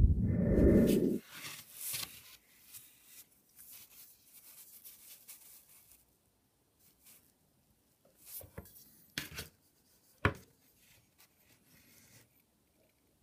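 Hands handling small parts: a loud, low bump lasting about a second at the start, then soft rustling, and a few sharp plastic clicks in the second half.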